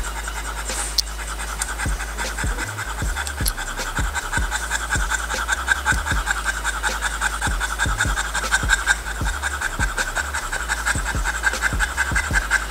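French bulldog huffing and puffing: steady, rapid panting from being worked up with exercise.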